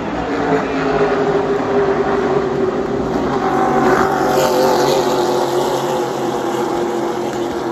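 A pack of race cars at full throttle passing close by, the engines swelling to their loudest about four seconds in as the field goes past, then easing off.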